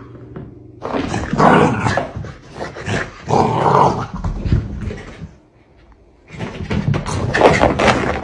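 Pomsky vocalizing in several loud bursts while playing with a moving toy, with a short lull about five seconds in.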